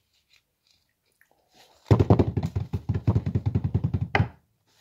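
A rapid run of knocks close to the microphone, about ten a second for some two and a half seconds, ending in one sharper hit.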